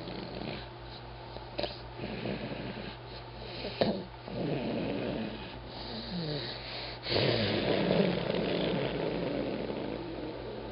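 A sleeping man snoring: several ragged, uneven snores, the longest and loudest starting about seven seconds in.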